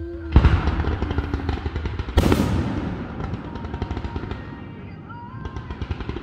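Fireworks: two loud bangs of aerial shells bursting about two seconds apart, each followed by a dense, rapid crackling of glittering stars that carries on and grows again near the end.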